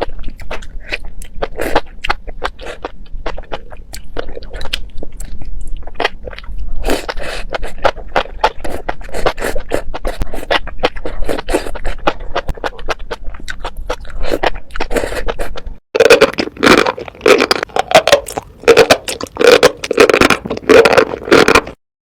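Close-miked eating sounds: a person chewing and biting food, with irregular wet clicks and crunches. About three-quarters of the way through there is a sudden cut to a louder, denser bout of chewing, which stops abruptly near the end.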